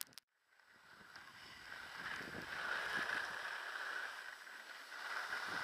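Skis sliding over packed snow: a steady hiss that comes in after a brief dropout near the start and grows louder, with some wind on the microphone.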